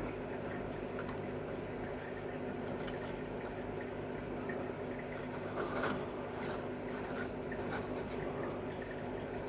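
Steady low background hum with a few faint clicks around six seconds in.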